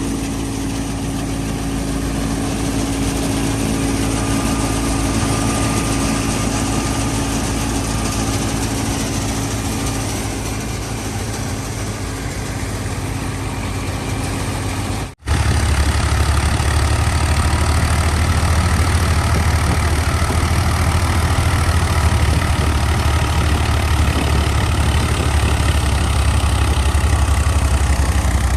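Fiat 480 diesel tractor engine running steadily while powering a wheat thresher, the thresher's machinery noise mixed in. About halfway through the sound cuts out for a moment and comes back louder, with a deeper drone.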